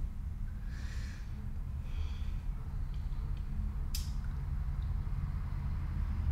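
A person breathing audibly, with a breath drawn in about a second in and another soft one near two seconds, over a steady low room hum; a short sharp click about four seconds in.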